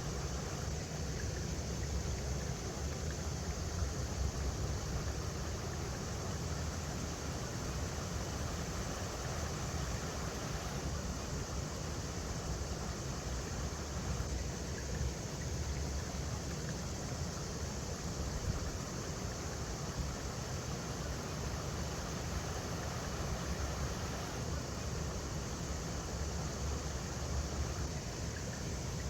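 River water running over rocks: a steady rushing with a heavy low rumble.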